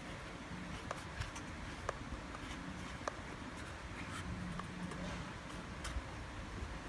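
Light scratching with scattered small clicks, as of hand work on a small model, over a faint steady hum.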